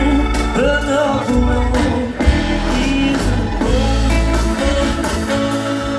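A live band playing blues-tinged music with a drum kit, keyboard and a singing voice.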